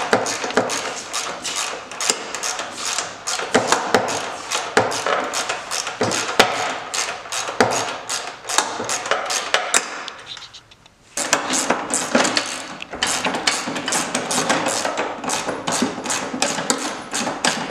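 Hand tools working on a snowmobile's steel A-arm bolts: a fast, irregular run of metallic clicks and knocks, as when a ratchet wrench is turned to take off the upper A-arm. The clicking stops for about a second around two-thirds of the way through, then carries on.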